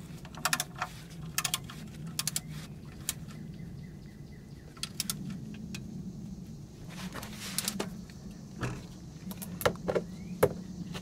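Socket wrench ratchet clicking in short runs as the transmission fluid strainer bolts are turned and torqued to 7 foot-pounds, over a low steady hum.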